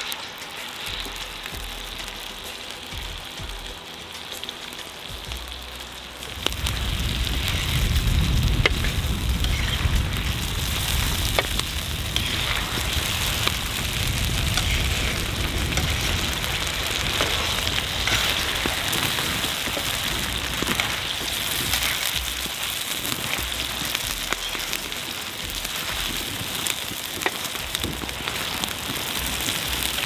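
Raw potato wedges sizzling and spitting as they fry in hot oil, the sizzle growing much louder about six seconds in, with occasional clicks of a metal spatula turning them.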